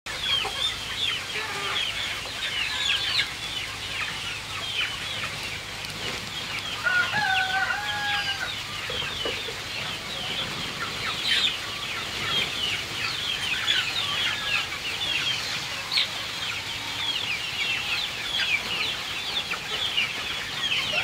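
A flock of chickens feeding at a trough, clucking and chirping in many short overlapping high notes, with one longer held call about seven seconds in.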